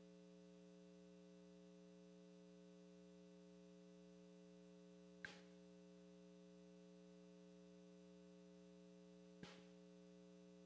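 Near silence with a steady electrical mains hum. Two brief faint clicks come about five and nine and a half seconds in.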